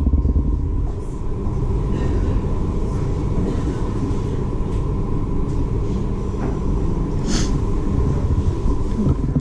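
Staten Island Ferry under way: a steady low rumble with a thin constant hum above it. A brief hiss or clink comes about seven seconds in.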